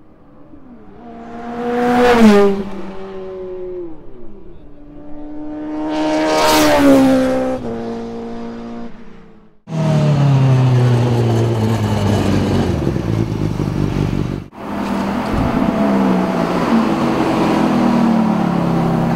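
Two cars passing by fast on a racetrack straight, each engine note rising in loudness and then dropping in pitch as it goes past, about two and seven seconds in. After two abrupt cuts, close engines run steadily for several seconds, then a sports car pulls away with its engine note rising and stepping through gears near the end.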